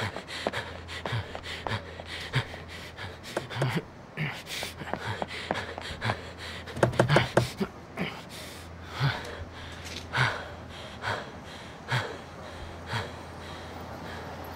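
A man breathing hard, panting and gasping for air, with soft knocks recurring about once a second.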